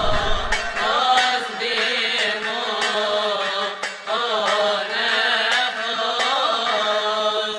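Slow, melismatic Coptic liturgical chant, with long held and wavering notes, over regular sharp strikes less than a second apart.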